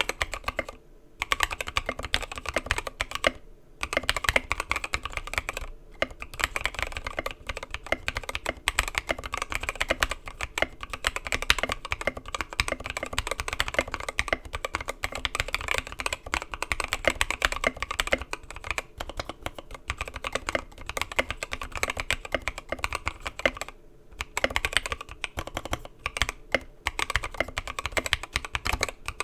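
Steady fast typing on a 65% mechanical keyboard with Gateron Milky Yellow linear switches, lubed with 205g0 and filmed, in an aluminum plate. The keystrokes come in a dense run of clicks with a few short pauses.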